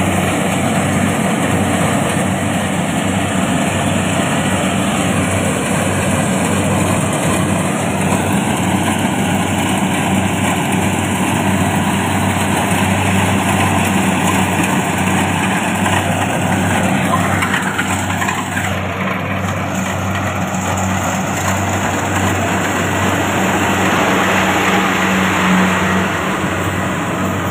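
Kubota combine harvester running while it works, a steady engine drone under the rush and clatter of its machinery.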